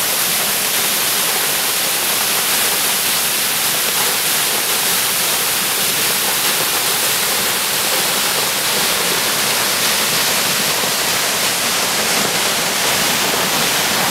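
A waterfall's steady rushing roar of falling water.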